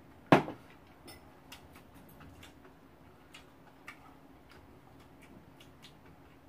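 A spoon and small bowl set down on the table with one sharp clack about a third of a second in, then faint scattered clicks of eating and utensils.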